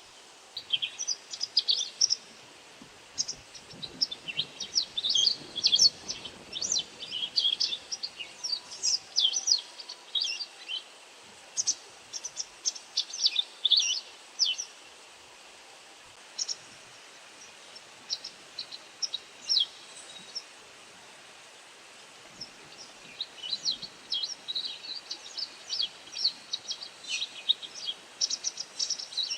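White wagtail giving rapid series of short, high, sharp call notes. The calls thin out to a few scattered notes about halfway through, then come thickly again near the end.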